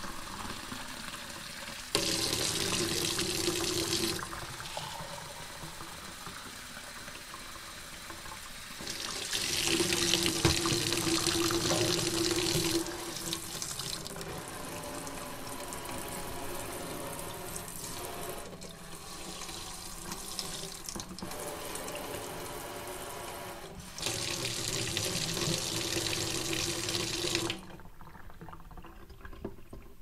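Water from a sink tap running into a drinking glass as it fills. The flow gets louder three times for a few seconds each and drops away near the end.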